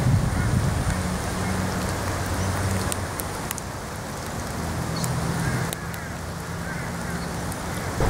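Heavy rain falling steadily, an even wash of noise with a few sharp ticks scattered through it, over a steady low hum.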